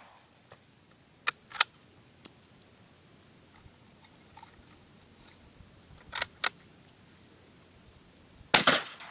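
Mossberg 183D .410 bolt-action shotgun: two sharp clicks about a second and a half in and two more around six seconds, as the bolt is worked, then one loud shot near the end.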